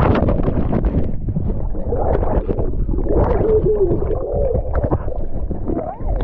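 Splashing and bubbling water as a snorkeler plunges below the surface, heard partly underwater. Midway, a few warbling calls from California sea lions come through the water.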